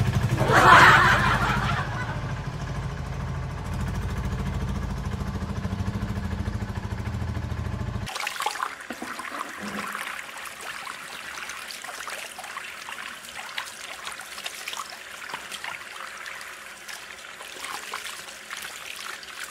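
A thin stream of water pouring onto a plastic toy auto rickshaw and splashing and trickling into a muddy puddle. For the first eight seconds a steady low hum runs underneath, then cuts off suddenly.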